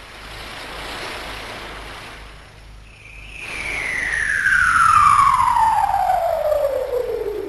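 Cartoon sound effect of the flying Nimbus cloud flying in. A rushing whoosh swells and fades, then about three seconds in a long falling whistle begins and grows louder as it drops in pitch.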